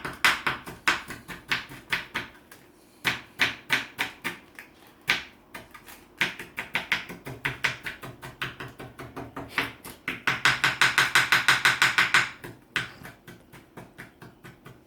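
Kitchen knife chopping fresh coriander on a cutting board: fast runs of sharp taps, broken by short pauses, the quickest and loudest run near the end before the strokes grow lighter.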